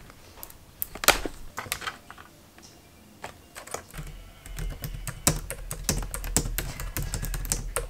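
A few scattered clicks, then from about four seconds in rapid typing on a Logitech K380 wireless keyboard, a quick patter of key taps.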